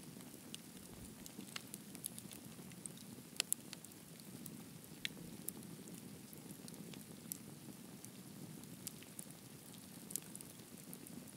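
Campfire crackling: a steady low rush of burning with irregular sharp pops and snaps, the loudest two coming in quick succession about three and a half seconds in.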